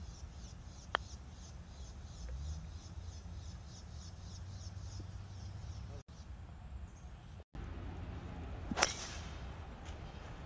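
A putter taps a golf ball once, a light click about a second in. Near the end a club strikes a ball off the tee with a sharp crack, the loudest sound. Insects chirp faintly and rhythmically underneath for the first part.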